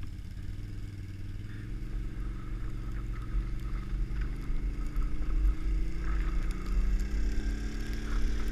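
Can-Am XMR ATV's V-twin engine running ahead on the tow rope, its pitch rising slowly as it speeds up, over a steady low rumble of a plastic trash can lid sliding over the snowy road.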